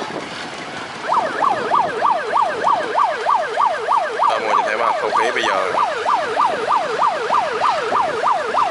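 Electronic siren sounding a fast yelp: rapid rising-and-falling whoops about three times a second, starting about a second in.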